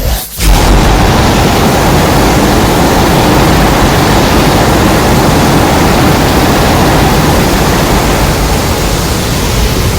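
Custom Godzilla sound effect: a loud, steady rushing noise with no clear pitch, briefly breaking off about half a second in and then holding.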